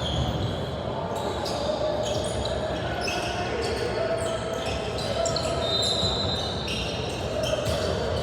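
Basketball game on an indoor court: sneakers squeak repeatedly at shifting pitches over a steady murmur of players and spectators.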